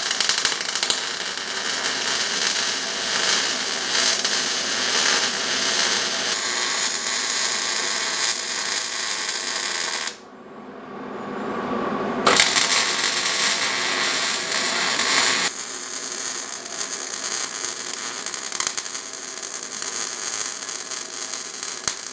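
Electric arc welding: the steady hiss of the welder running a bead. It breaks off for about two seconds near the middle, then starts again.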